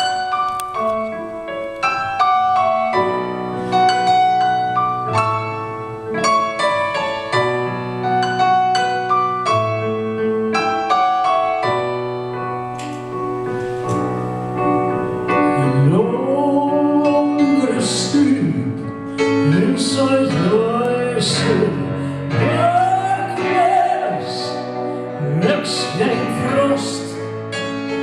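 Piano playing a song introduction; about halfway through, a woman's voice comes in singing slow arching phrases over the piano.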